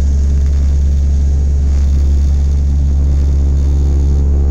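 Turboprop airliner's engine and propeller droning steadily, heard inside the passenger cabin after takeoff: a loud, deep hum with a layered steady tone over it.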